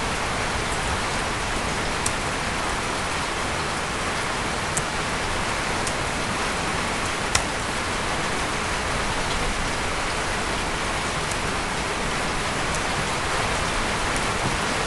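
Steady, even hiss of noise, with a few faint sharp clicks; the strongest click comes about halfway through.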